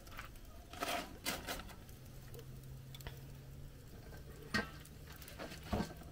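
A few scattered light clicks and knocks, about five in all, over a faint steady low hum.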